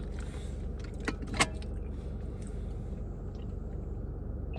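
Steady low hum with a few short, sharp clicks about a second in.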